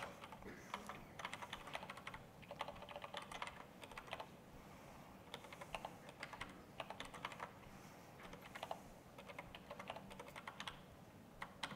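Typing on a computer keyboard: faint runs of key clicks with short pauses between them.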